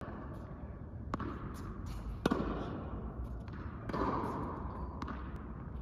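Tennis ball struck by rackets and bouncing on the court during a rally: four sharp knocks, the second loudest, echoing in a large indoor tennis hall.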